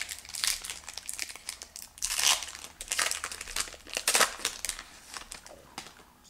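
Foil wrapper of a Panini Score hockey card pack crinkling and tearing as it is opened by hand, in irregular crackling bursts that are loudest about two seconds in and fade out near the end.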